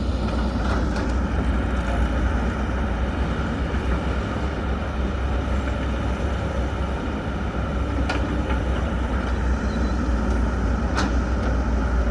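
Heavy diesel engine of earth-moving machinery running steadily with a deep rumble, as an excavator loads a dump truck, with a few sharp knocks about eight and eleven seconds in.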